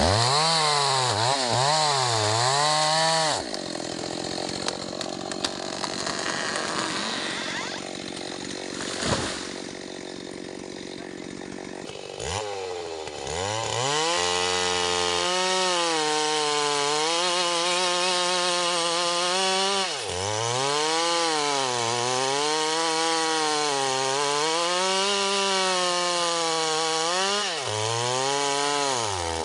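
STIHL MS 381 two-stroke chainsaw ripping a mahogany log, its engine note wavering up and down as it works through the cut. For a stretch in the first half the engine note drops out and a quieter, rougher sound takes over, with a sharp click partway through, before the saw is heard running and cutting again.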